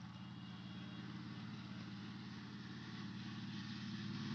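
An engine running steadily, a low pulsing hum that slowly grows louder.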